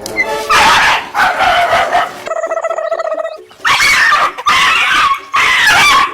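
A dog barking in a series of loud bursts, with one long held cry about halfway through.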